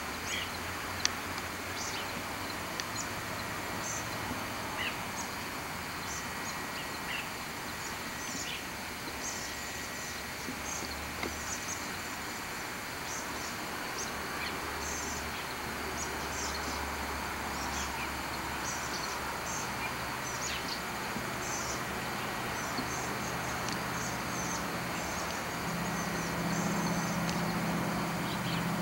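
Small birds chirping over a steady hiss, with a low steady hum that gets louder for the last few seconds.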